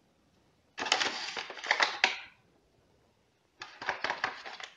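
Paper flour bag with a foil lining crinkling as it is handled, in two crackly bursts with a short quiet gap between.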